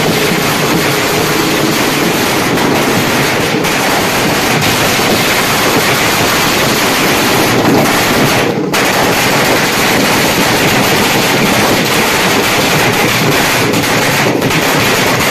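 Ground fireworks, spark fountains and firecrackers, burning on the ground with a loud, dense, continuous hissing crackle.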